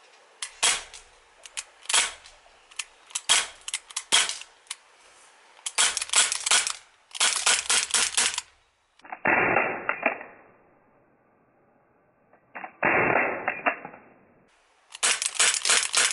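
Legends Makarov Ultra CO2 blowback BB pistol fired in quick strings of shots, each a sharp crack with the clack of the slide cycling back. About halfway through come two separate duller, muffled stretches of noise with no shots, and near the end another quick string of shots.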